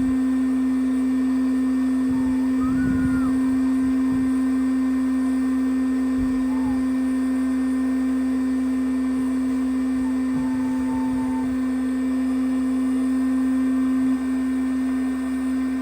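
A steady machine hum with one strong constant pitch, easing slightly in level about 14 seconds in.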